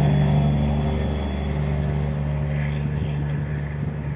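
AS01 service railcar running light and pulling away, a steady engine drone with track rumble that slowly fades as it recedes.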